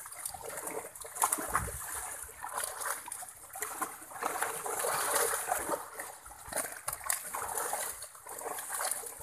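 Many fish thrashing in the shallow water of a drawn-in seine net: continuous splashing with frequent sharp slaps of fish on the water.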